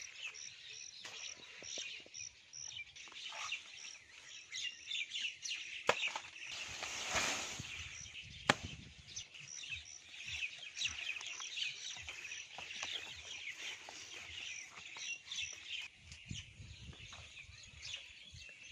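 Birds chirping, with one high chirp repeating evenly about two and a half times a second. Two sharp knocks come about six and eight and a half seconds in.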